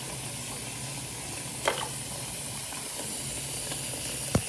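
Bathroom sink tap running steadily into a filling basin, a constant hiss of water. Two short knocks cut through it, one about a third of the way in and a sharper one near the end.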